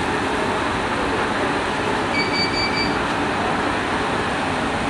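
Steady rushing background noise at an even level, with a short high tone lasting just under a second about two seconds in.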